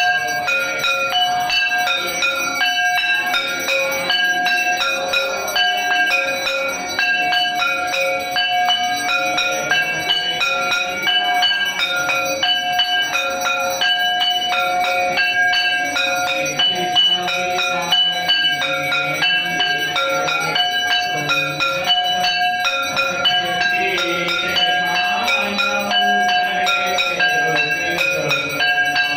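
Temple bells rung during a Hindu aarti, struck over and over in a steady rhythm so that their ringing tones keep overlapping.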